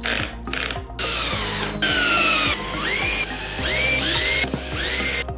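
Cordless electric screwdriver running in several short bursts while driving the screws of a motorcycle airbox cover. Its whir rises in pitch as it spins up and falls away as it slows.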